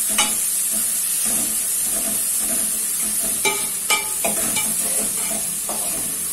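Crushed shallots and dried red chillies sizzling as they sauté in hot oil in a metal pot, stirred with a metal spatula that scrapes the pot. There are a couple of sharper metallic clinks about halfway through.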